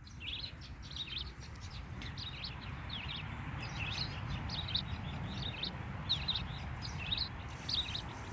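Recorded red-eyed vireo song played from a plush toy bird's sound box: short, high chirped phrases repeated one after another with brief pauses, over a steady low hiss.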